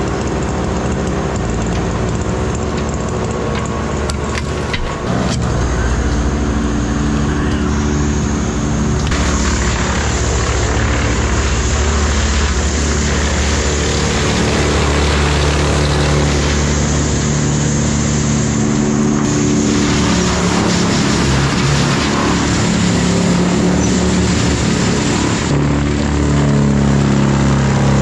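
A mini excavator's engine and a brush chipper running together steadily, with a noisy rush that comes and goes as the excavator's grapple feeds brush and branches into the chipper.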